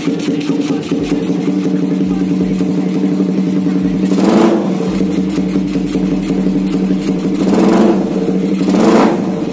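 Suzuki Satria FU 150 single-cylinder four-stroke engine idling steadily, blipped three times, about four seconds in and twice near the end, each rev rising and falling back quickly. It runs on a freshly fitted TDR racing spark plug with the carburettor re-tuned: the idle holds even and the revs pick up at once without bogging.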